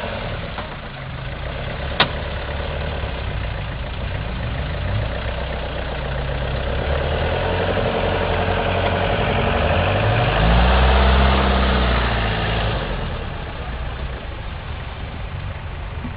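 Toyota Land Cruiser 4x4 engine pulling off-road, its revs rising about ten seconds in where it is loudest, then easing off. A single sharp click about two seconds in.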